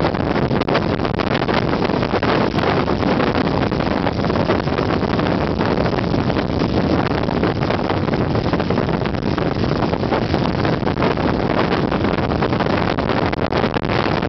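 Strong typhoon wind buffeting the microphone: a loud, continuous rushing rumble that never lets up.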